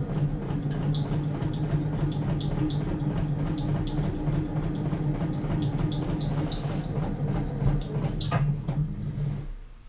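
Electric sewing machine stitching at a steady speed, its motor humming under fast needle clicks as the needle punches through a paper practice sheet; it stops suddenly near the end.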